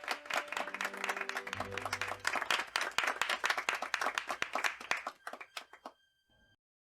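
Audience applauding, many hands clapping at once, with faint music tones underneath; the clapping thins out and stops about six seconds in.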